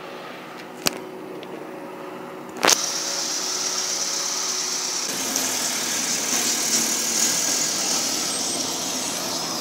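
A Honda Civic EK hatchback's engine running at low revs, heard through a phone camera's microphone. A small click about a second in and a loud sharp click near three seconds, after which a steady hiss joins the engine sound.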